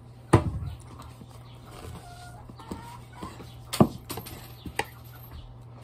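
Cutlery on a plate: a few sharp clinks of a knife and fork against the dish, one near the start and two more later on, over a low steady hum.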